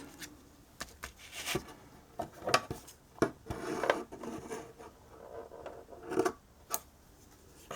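Cardstock being handled and pressed together on a craft table: scattered rustles and rubs with a few light taps and clicks.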